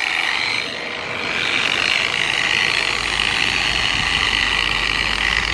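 Harbor Freight variable-speed polisher running steadily at its lowest setting with its foam pad pressed flat on a car's trunk lid, spreading polish over the paint. Its hum is briefly quieter about a second in.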